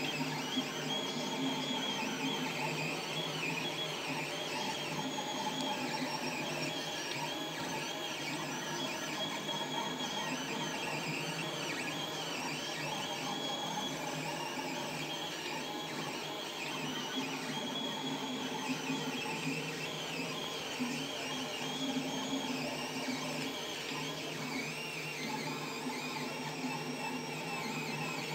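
FDM 3D printer running a print: its stepper motors whine in pitches that keep sliding up and down as the print head moves back and forth, over a steady hum.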